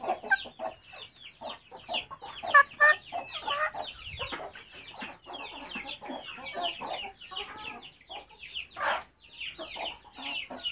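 Many chicks peeping continuously in quick, high, falling chirps, with hens clucking now and then in lower, louder calls.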